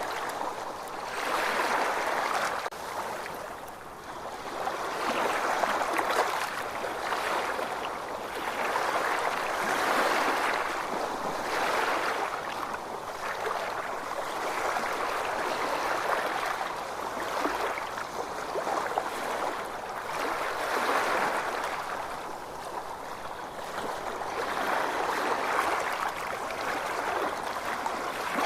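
Ocean waves washing in, a rushing hiss that swells and ebbs every four to five seconds.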